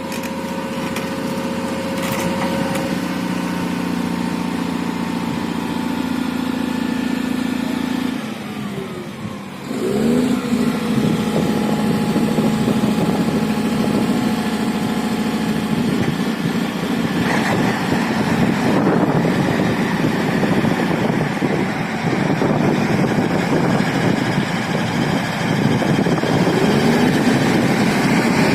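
Engine of a heavy earth-working machine running steadily. After a brief dip about eight to ten seconds in, it comes back louder and rougher, with more grinding noise, for the rest of the stretch.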